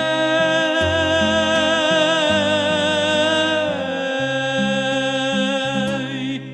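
Song ending: a long held sung note with vibrato over bass and accompaniment, gliding down a little over halfway through, then the music cuts off sharply near the end, leaving a faint fading ring.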